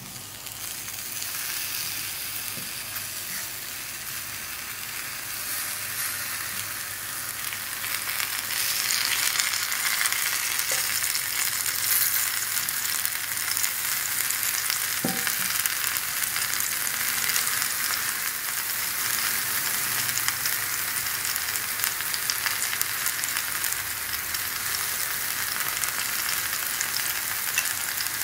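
Halved red bell peppers sizzling on a hot ridged grill pan, a steady crackling hiss that grows louder over the first several seconds and then holds.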